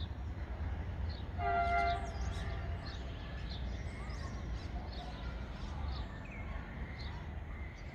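A train horn sounds once, briefly, about a second and a half in, over scattered bird chirps and a steady low rumble.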